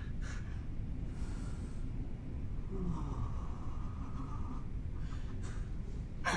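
A woman breathing audibly, drawing deep breaths to collect herself, over a low steady room rumble.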